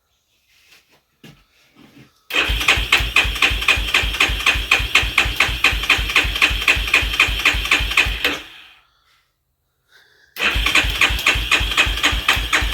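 Yamaha Warrior ATV's single-cylinder engine being cranked over by its starter in two long tries, an even chugging of about five pulses a second, without catching. It turns over but does not fire, which the owners put down to no fuel reaching the engine.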